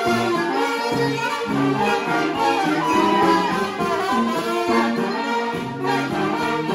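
Brass band playing live, with several horns sounding together over a low bass line.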